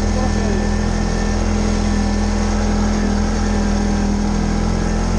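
TGB Blade 550 ATV's single-cylinder engine running at steady speed while riding, a constant even drone with no change in revs.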